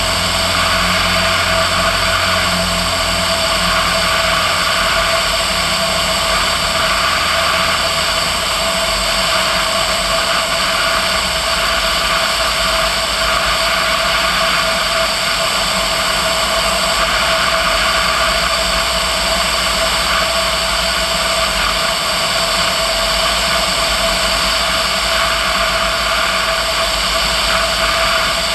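Single piston engine and propeller of a Socata TB10 Tobago light aircraft droning steadily in cruise on approach, heard from a wingtip camera over a heavy rush of airflow noise.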